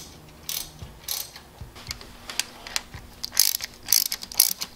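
Socket ratchet clicking in short, irregular bursts as it is swung back and forth, running a thermostat housing bolt in just snug on fresh RTV sealant, not yet torqued.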